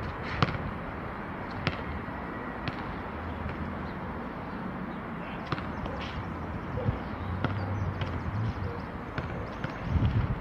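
Steady open-air background noise with a handful of sharp, short clicks or knocks at irregular intervals.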